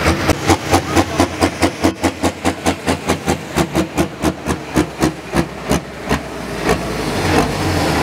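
Pulling tractor's engine idling close by with a heavy, lumpy beat of about five pulses a second; about six seconds in, the pulses fade into a steadier engine sound that rises toward the end.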